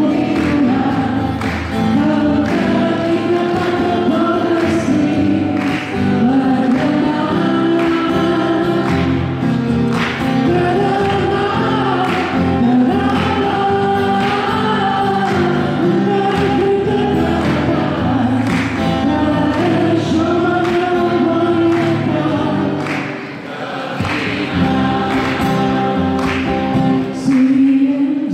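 A song sung to a strummed acoustic guitar, amplified through a PA.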